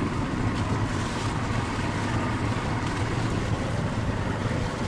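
Outboard motors of small boats running steadily at a distance, a low even drone, with wind on the microphone.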